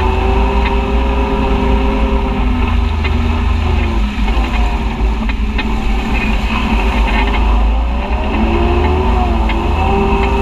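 Side-by-side UTV engine running at a steady cruise along a muddy trail, easing off around four seconds in and wavering in pitch near eight seconds before picking up again, over a constant low rumble.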